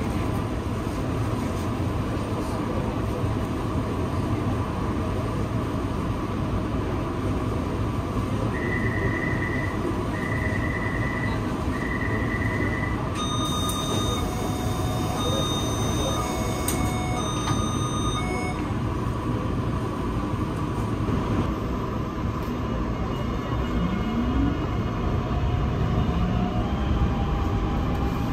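A metro train stands at the platform with its doors open under a steady hum. Midway come three electronic beeps about a second long each, then a repeating pattern of higher chime tones: the door-closing warning. Near the end a rising whine begins, the traction motors starting the train after the doors shut.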